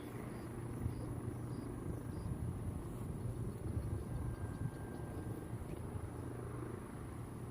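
A vehicle's steady low engine and road rumble as it drives, with a faint steady high-pitched whine above it.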